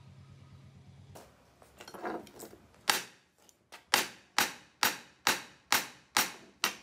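Hammer blows, metal on steel: a few light clinks, then a string of sharp ringing strikes about two a second, each dying away quickly. A faint low hum stops about a second in.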